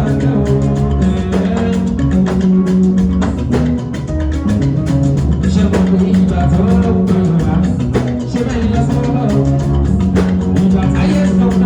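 Music with a singing voice, drums and guitar, played loud with a steady beat.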